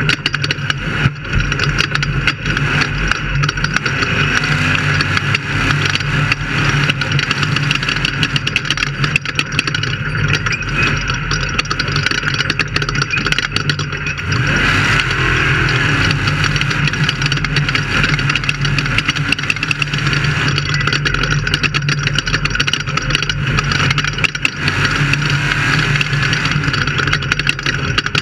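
Off-road race car engine running steadily and loudly, with many short knocks and rattles over it.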